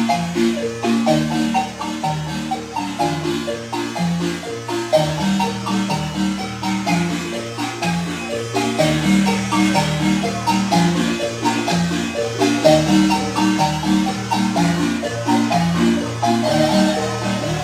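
Guatemalan marimba played by several players at once, a rolling bass line under a fast, busy melody of struck wooden bars.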